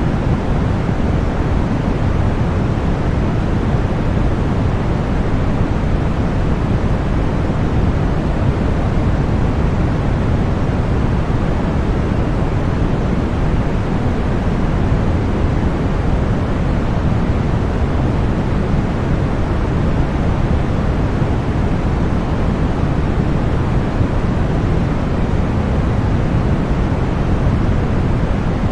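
Continuous generated white noise, loud, steady and unchanging, weighted toward the low end so it sounds deep and rumbly rather than a bright hiss.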